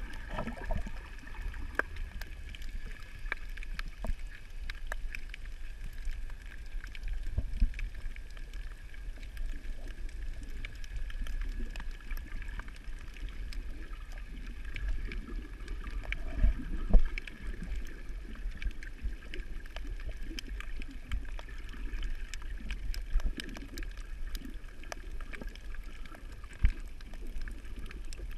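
Underwater sound heard through a camera's waterproof housing: a steady low rumble of moving water with scattered faint clicks and crackles and a faint steady high whine. A few dull knocks stand out, the loudest about two thirds of the way through.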